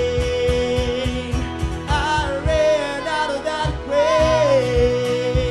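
Church worship band playing a song, with a singer holding long sung notes over a steady drum beat.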